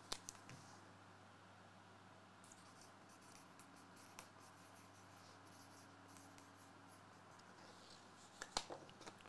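Near silence: room tone with a faint steady hum, broken by a few light clicks and handling noises, twice just after the start, once about four seconds in, and a quick cluster near the end.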